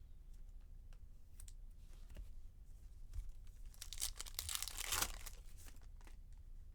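A trading card pack wrapper being torn open and crinkled, in one rustling tear about four seconds in that lasts a second or so, after a few light clicks of cards being handled.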